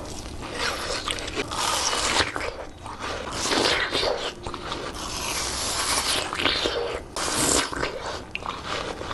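Close-miked biting and chewing of fresh fruit: irregular wet, crunchy bites and chews.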